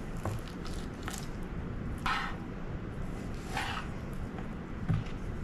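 Chef's knife slicing horizontally through a raw chicken breast on a plastic cutting board: soft squishing, with two brief swishes as the blade is drawn through the meat.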